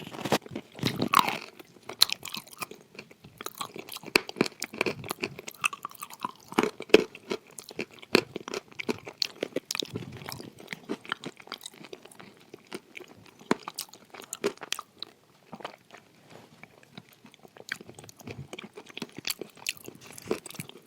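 Close-miked chewing and crunching of edible clay, a steady run of irregular sharp crunches and mouth clicks.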